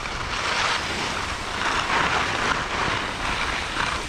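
Skis sliding and scraping over packed snow on a downhill run, a hissing rush that swells and fades several times, mixed with wind noise on the microphone.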